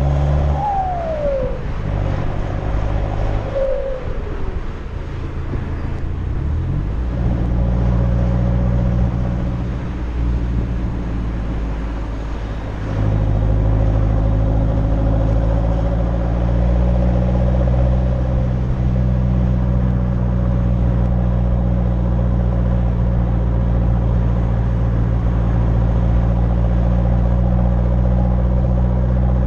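Exhaust of a 2006 Ford Focus Mk2 estate fitted with a custom straight-piped duplex exhaust, catalytic converter still in place, heard while driving. The revs fall twice in the first few seconds and the engine runs quieter for several seconds. About 13 seconds in it gets louder again and holds a steady note.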